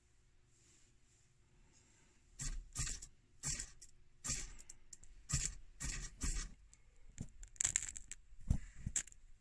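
Ferro rod being struck over and over to throw sparks onto a wax-and-sawdust fire-starter puck: about a dozen short, harsh scrapes, roughly one every half second, starting about two seconds in.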